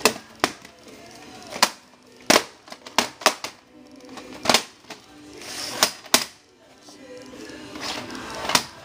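Irregular sharp clicks and knocks, about ten of them, from VHS tapes and their plastic cases being handled.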